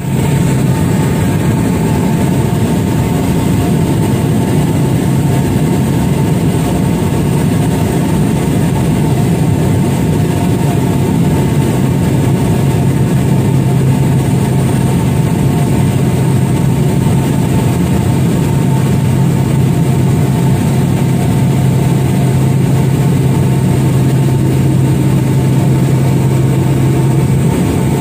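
Small propeller aircraft's engine droning steadily at a constant pitch.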